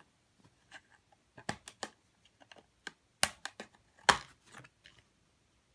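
A plastic DVD case being handled and opened: scattered light taps and clicks, with two sharper snaps about three and four seconds in.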